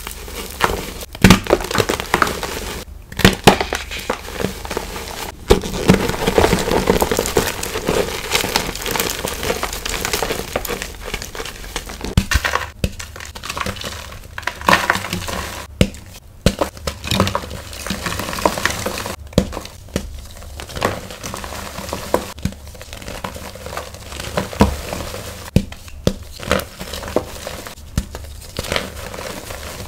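Blocks of pink gym chalk crushed and crumbled in bare hands: dense crunching and crackling as the blocks give way, with short pauses between squeezes.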